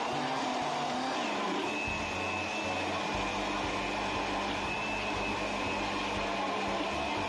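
Countertop blender running steadily, blending a mango shake, with a steady high motor whine over the churning of the jar.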